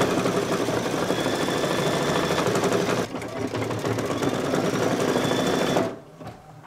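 Brother Luminaire embroidery machine stitching at speed with a fast, steady needle clatter. It dips briefly about three seconds in, runs on, then stops shortly before the end.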